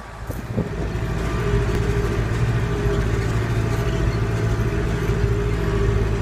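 John Deere 5725 tractor's four-cylinder diesel engine running steadily while pulling a plough; it swells up about half a second in and then holds an even drone, growing slightly louder.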